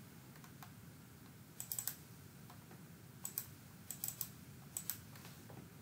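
Faint clicking at a computer: four short clusters of two or three clicks each, spread about a second apart.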